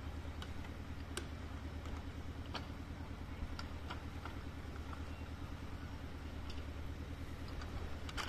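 An engine running steadily at low revs, with scattered sharp ticks and clicks over it.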